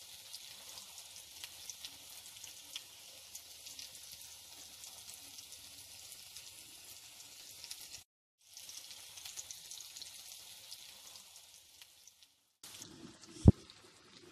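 Breaded chicken nuggets deep-frying in hot oil: a steady sizzle full of small crackles. It cuts out briefly about eight seconds in and grows quieter near the end, where a single sharp knock is the loudest sound.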